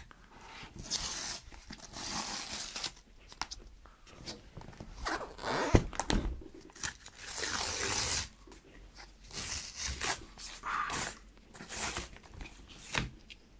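Cardboard shipping box's tear strip being pulled off, ripping in a series of short tearing bursts, with one sharp knock near the middle.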